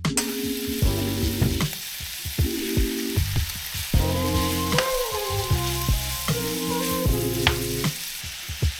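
Food sizzling as it fries in a pan, with a few sharp clicks of a utensil, over background music.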